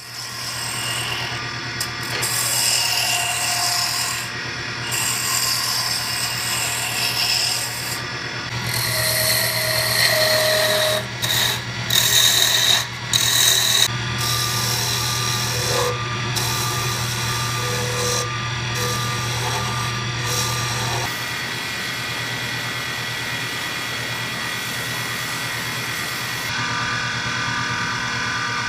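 Wood lathe running with a steady motor hum while hand turning tools cut and scrape a spinning wooden crochet-hook blank, a rough shaving and scraping sound. The sound changes abruptly several times.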